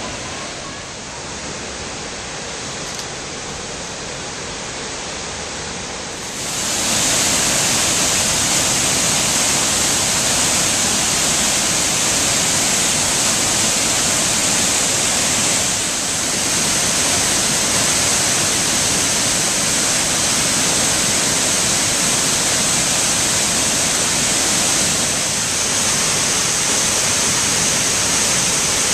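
The Great Falls of the Passaic River: a waterfall rushing steadily, with an even wash of noise and no breaks. It gets louder about six seconds in, then holds steady.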